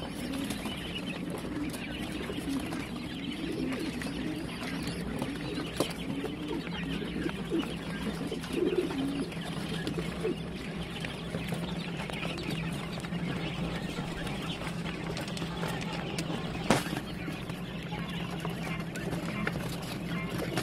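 A flock of month-old quail chicks chirping and peeping continuously, with low wavering calls in the first half, over a steady low hum. A single sharp click about 17 seconds in.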